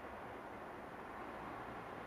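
Faint steady background rumble and hiss, with no distinct event.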